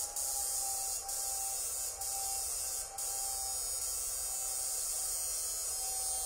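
Homemade battery-powered electronic fish shocker (inverter) running with a steady high-pitched electrical whine and hum. It cuts out briefly about once a second for the first three seconds, then runs on steadily.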